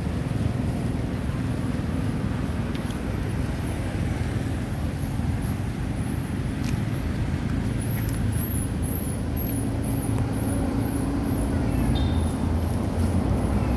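Steady low outdoor background rumble, with faint high-pitched repeating chirps from about five seconds in.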